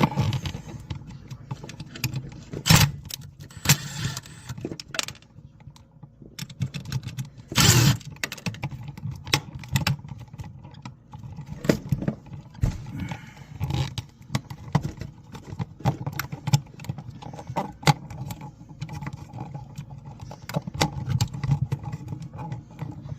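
Irregular clicks, taps and small metallic rattles of hand tools and parts being handled, with louder knocks about three and eight seconds in.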